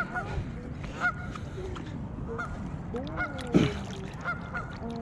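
Geese honking over and over in short calls, with one sharp knock about three and a half seconds in.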